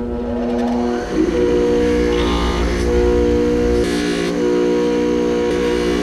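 DeWalt bench grinder running at speed: a steady motor hum with several level tones. A short higher hiss comes twice, about two and four seconds in.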